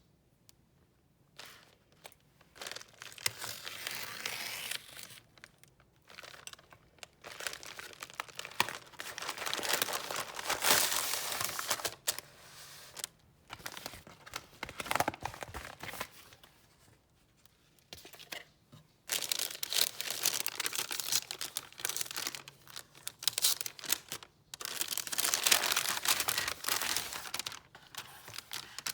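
Packaging being torn open and crinkled by hand, in several bouts of rustling and tearing with short pauses between.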